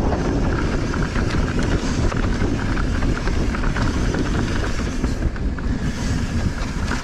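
A mountain bike running fast down a dry dirt trail: tyre noise and rattling from the chain and frame over the bumps, under a steady low rush of wind on the microphone.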